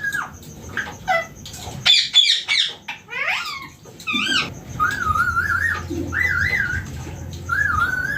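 Rose-ringed (Indian ringneck) parakeet calling: sharp chirps and squawks in the first half, then a run of wavering, warbling whistles in the second half.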